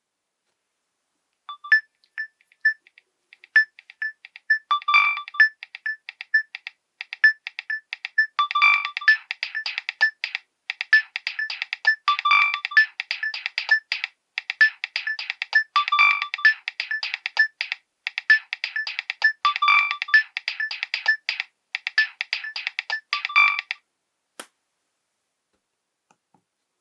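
Nokia 7210 polyphonic ringtone playing a rhythmic electronic melody of short repeated notes, starting about a second and a half in and stopping about twenty-two seconds later, followed by a single sharp click.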